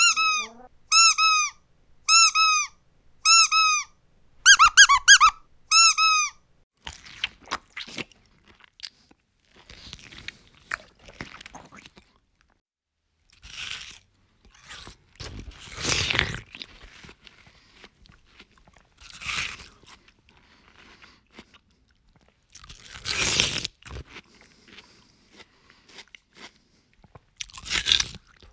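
A squeaky toy squeezed about once a second for the first six seconds, the last squeeze a quick double. Then crunchy food is chewed in scattered loud crunching bites, with quiet gaps between them.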